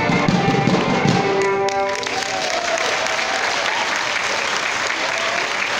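Live folk dance music with a thumping beat ends about two seconds in, and the audience breaks into applause with a few voices calling out.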